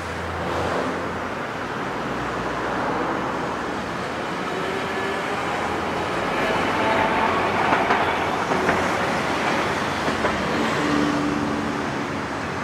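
City road traffic: cars driving past close by while Hiroshima Electric Railway streetcars run along the tracks in the middle of the road. The noise swells to its loudest a little past halfway, with a few sharp clicks there.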